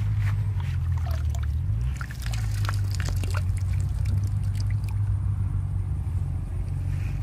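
Water trickling and dripping from a watermelon fish trap lifted out of a muddy puddle, in small irregular splashes. A steady low rumble runs underneath.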